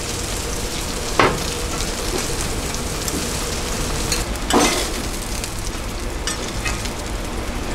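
Mullet steaks frying in oil on a large flat pan, a steady sizzle, with a sharp clink of a metal spatula or tongs about a second in and again just past halfway.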